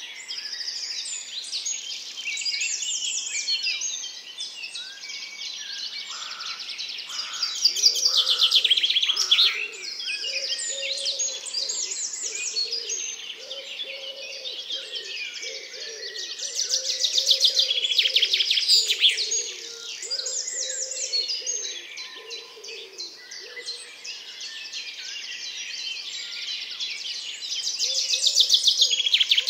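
Woodland birds singing and calling, full of fast high trills and chirps, swelling into louder stretches of song about every ten seconds.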